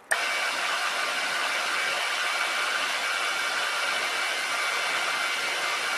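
Milling machine spindle running with an end mill side-milling aluminium square stock flat, a steady, even whir that starts abruptly just after the beginning.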